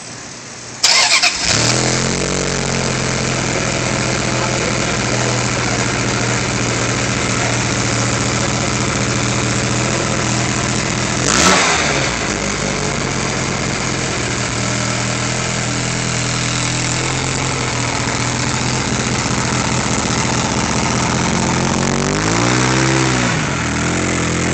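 Ferrari F355 Spider's V8 engine cold-started: it fires about a second in, then idles steadily. It gives one quick rev midway and a short blip near the end.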